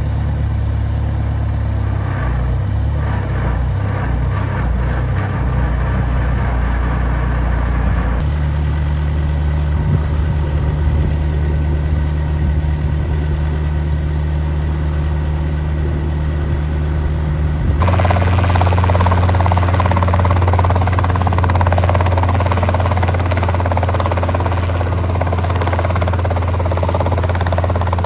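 Helicopter engine and rotor noise, a loud steady low drone, whose pitch and balance change abruptly twice, about 8 and 18 seconds in.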